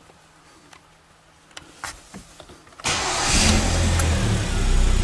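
Hyundai G4KD 2.0-litre four-cylinder petrol engine starting on its first trial start after a rebuild for scored cylinders: a few faint clicks, then about three seconds in it catches suddenly and runs steadily. It starts well.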